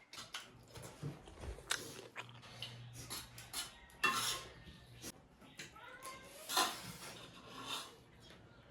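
Close-up eating sounds: irregular chewing and mouth smacking, with dishes and cutlery clinking now and then. Two louder bursts come about four and six and a half seconds in.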